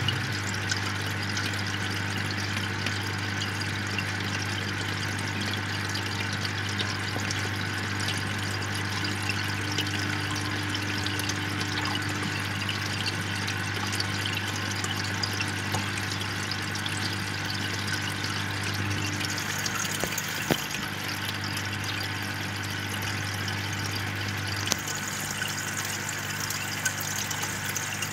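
Aquarium air stone bubbling steadily, a continuous fizzing stream of small bubbles, with a low steady hum underneath that drops out a few seconds before the end.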